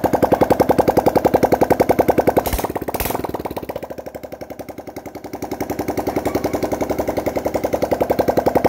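Suzuki GN125's single-cylinder four-stroke engine idling with an even beat of about nine pulses a second. Two sharp knocks come about two and a half and three seconds in, and the engine sound fades somewhat in the middle before coming back up.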